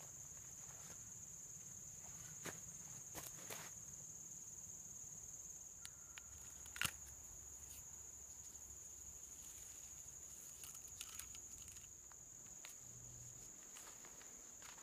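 A steady high-pitched insect drone, with faint footsteps and a few small clicks of gear being handled; the sharpest click comes about seven seconds in.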